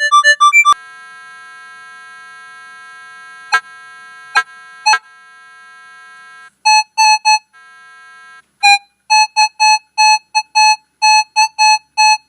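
Electronic synthesizer jingle: a quick run of short beeping notes, then a long held chord with a few plucked notes over it, then a string of short repeated staccato notes.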